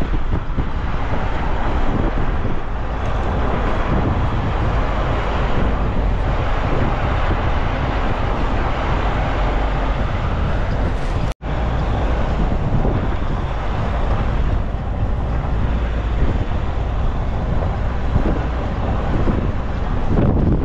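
A vehicle running along a road, a steady rumble with wind buffeting the microphone. The sound drops out for an instant a little past halfway, at an edit, then carries on as before.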